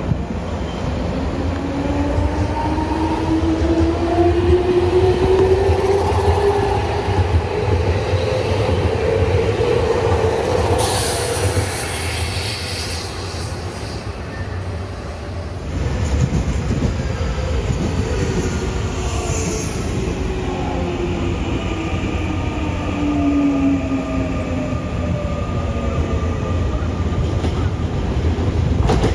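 Nankai 3000-series electric train pulling out, its traction motor whine rising in pitch as it accelerates over the rumble of wheels on rail. About 16 seconds in the scene changes to a Nankai 6300-series train running in, its motor whine falling in pitch as it brakes.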